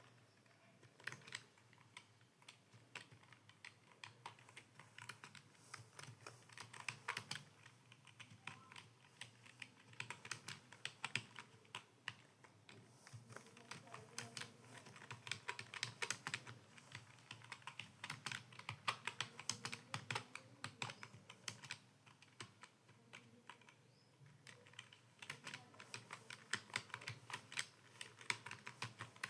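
Computer keyboard being typed on rapidly, fast runs of key clicks broken by brief pauses, during timed Hindi typing practice.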